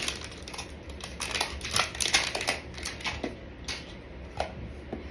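Plastic wrapping being torn and crinkled off a Pokémon card tin: a quick run of crackles and clicks, thickest around two seconds in.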